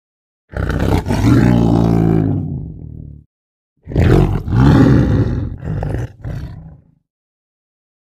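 Lion roaring: one long, deep roar that falls in pitch and fades over about two and a half seconds, then, after a short pause, a run of four or five shorter grunting calls.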